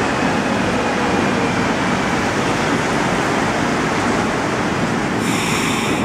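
Montreal Metro Azur train on rubber tyres running along the station platform and slowing, a steady loud rolling noise echoing in the underground station. A short high-pitched sound joins in near the end.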